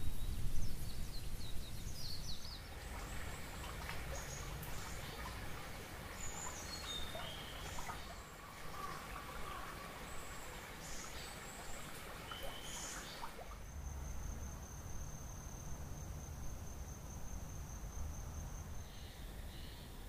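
Outdoor forest ambience with a low rumble underneath, strongest in the first second or two. Over it are many short, varied bird chirps and calls for most of the first two-thirds. After an abrupt change, a single steady, high-pitched insect trill holds for about five seconds, followed by a few short repeated notes near the end.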